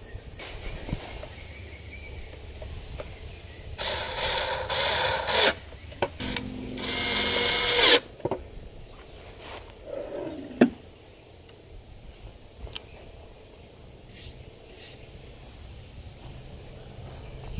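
Two bursts of mechanical rattling and scraping, about four and then seven seconds in, from handling the small wooden drawer of a painted side table with a red power tool in it. The second burst has a steady hum under it. A few light clicks come later.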